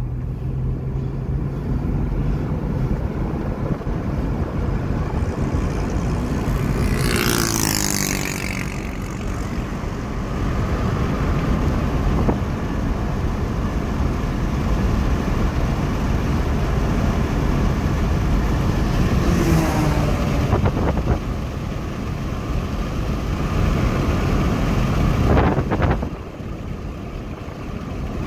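Car driving at highway speed, heard from inside the cabin: steady engine and road noise. A brief sound rises and falls about seven seconds in, with shorter ones around twenty and twenty-five seconds.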